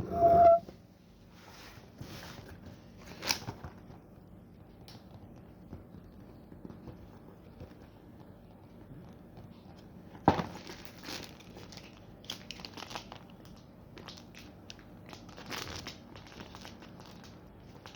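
Packaging crinkling and rustling as a craft kit is unwrapped, with a short squeak right at the start and a couple of sharp knocks, one about three seconds in and a louder one about ten seconds in; the rustling grows busier in the second half.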